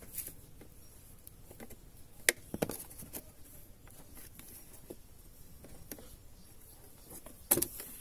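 Scattered plastic clicks and knocks from a car's dashboard wiring connector being unplugged and the glovebox trim handled, with the sharpest clicks about two seconds in and again near the end.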